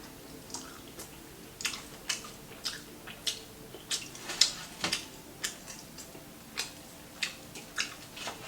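Crispy fried chicken being chewed close to the microphone: sharp, crisp crunches about twice a second.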